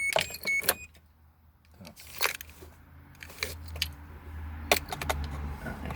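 Short electronic beeps, about four a second, that stop within the first second, then scattered sharp clicks and knocks of handling parts, the loudest a little before five seconds, over a low hum in the second half.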